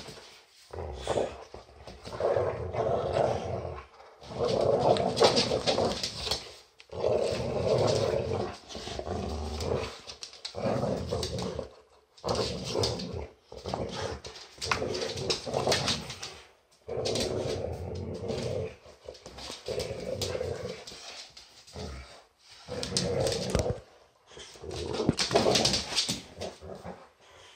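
Boxer dogs play-growling in rough repeated bursts of one to two seconds with short pauses between, as they tug and wrestle over a plush toy.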